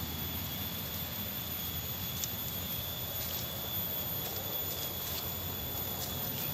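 Footsteps crackling faintly in dry bamboo leaf litter, a few scattered snaps of twigs, over a steady low rumble, with a steady high-pitched tone throughout.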